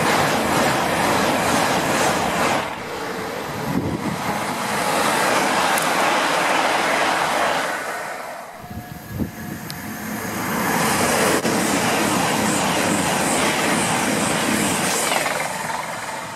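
High-speed passenger trains passing at speed, one after another: the steady rush of wheels and air from an LNER Class 801 Azuma, then from a TransPennine Express Class 802. The noise drops briefly about three seconds in and again about eight to ten seconds in.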